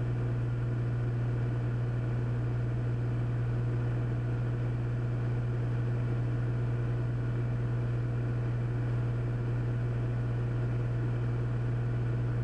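Cessna 400's turbocharged Continental six-cylinder engine and propeller droning steadily in the cabin, a constant low hum with no change in power.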